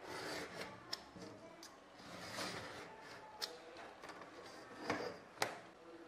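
Craft knife blade drawn through a leather strip against a steel ruler on a cutting mat, in several short scratchy strokes, with a few sharp clicks in between.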